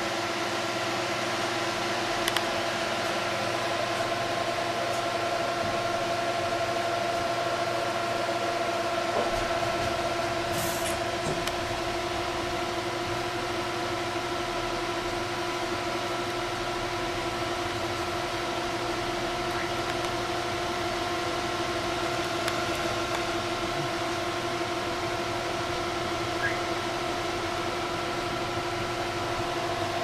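Four Delta AFB1212SH 120 mm high-speed fans running at full speed (up to 3400 rpm) on a water-cooling radiator: a steady rush of air with a constant whine.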